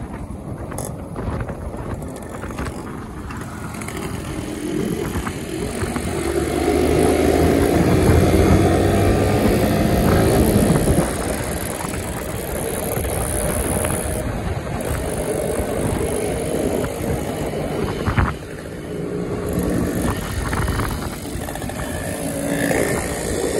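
Motorcycle engines running on the move, with wind rushing over the microphone. The engine pitch climbs and gets louder from about five to eleven seconds in as the bikes accelerate, with another rise near the end.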